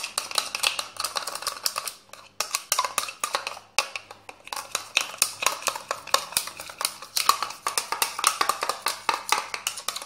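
Metal teaspoon clicking and scraping against the sides of a small bowl while a thick mixture of dish soap and powder detergent is stirred briskly: rapid, irregular clinks with short breaks about two and four seconds in.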